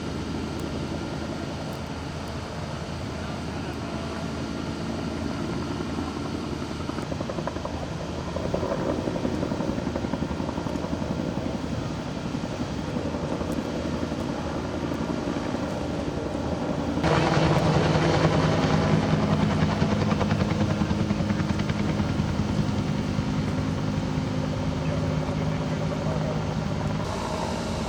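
Steady engine running, with faint voices in the background; about two-thirds of the way through it suddenly becomes louder and fuller.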